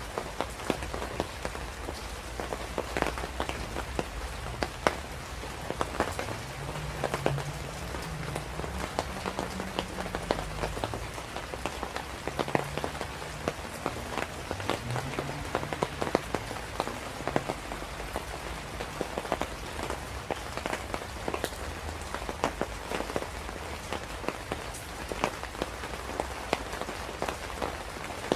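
Steady rain, a dense patter of individual drops hitting a surface over an even rushing hiss.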